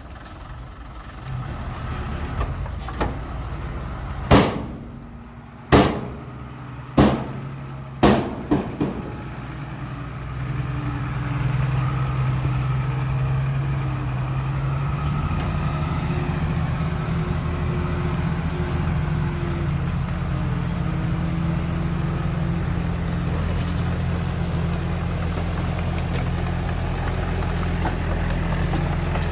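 Heavy diesel engine running, with four loud sharp bangs about a second apart some four to eight seconds in; from about ten seconds in the engine runs louder and steady.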